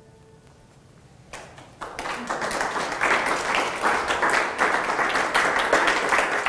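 Audience applauding, starting about a second and a half in and quickly building to full, dense clapping.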